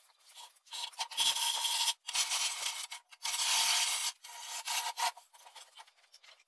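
Hand file scraping across the gas-welded repair seam in a steel car wing, dressing the weld flush in long strokes about one a second.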